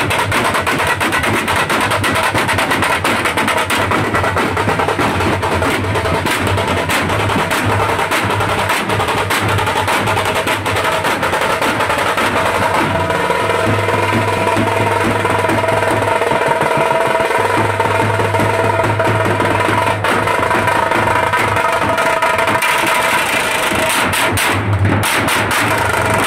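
A street band of stick-beaten drums (snare drums and large side-held bass drums) playing a fast, loud rhythm with rolls, for dancing. From about halfway, some held pitched tones join the drumming.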